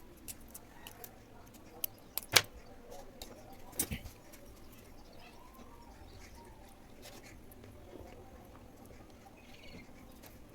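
Scattered small clicks and taps of tools and electronic components being handled at a workbench. The sharpest click comes a little over two seconds in, with a pair of smaller ones near four seconds.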